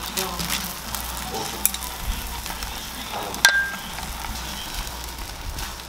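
Beaten egg sizzling in a nonstick frying pan on a gas burner while wooden chopsticks and a spatula fold a thin egg sheet, with light taps against the pan. A sharp clink with a short ring about three and a half seconds in.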